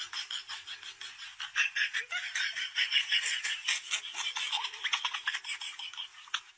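A person laughing in quick, breathy snickers, with a brief break near the end.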